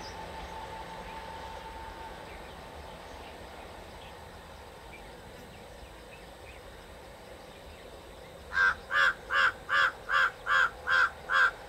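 A crow cawing eight times in an even series, about two and a half calls a second, near the end. Under it is the faint sound of the approaching diesel multiple unit train, fading in the first couple of seconds.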